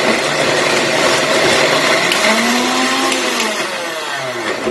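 Electric mixer-grinder with a juicer filter jar running, blending peeled orange segments with a little water into juice. The motor's pitch slides down shortly before it stops at the very end.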